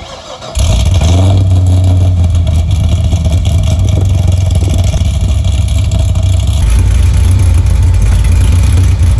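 Cammed Corvette C6 V8, with a Texas Speed Stage 3 cam, headers, an off-road X-pipe and Z06 mufflers, being warm-started. The starter cranks briefly and the engine catches under a second in, running loud and deep. About six and a half seconds in it settles to a lower idle.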